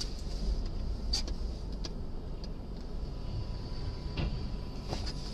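Low, steady vehicle rumble with a few faint clicks.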